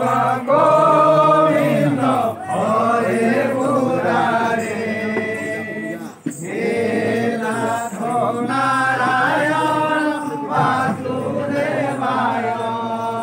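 A group of voices chanting a devotional kirtan together, sung phrases rising and falling with a short break about six seconds in.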